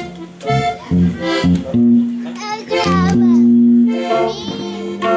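Live regional Mexican band playing the opening of a corrido: an accordion leads the melody over an electric guitar and an electric bass line.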